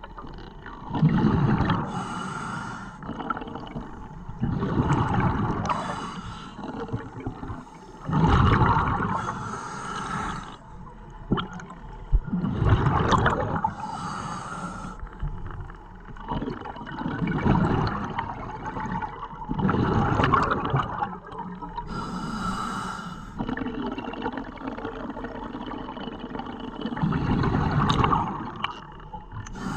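Scuba regulator breathing underwater: a short hiss on each inhale and a loud burst of bubbles on each exhale, repeating about every four seconds.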